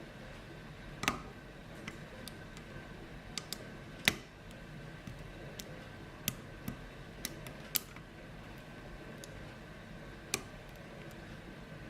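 Lock pick and tension wrench working the pins of a 5-pin Ruko lock: scattered, irregular sharp clicks, loudest about one second in and about four seconds in.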